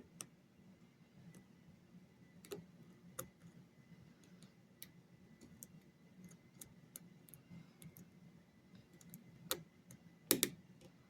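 Small metal ticks and clicks of a lock pick and tension wrench working the pins of a pin-tumbler lock, irregular and faint, with a louder clatter of clicks near the end.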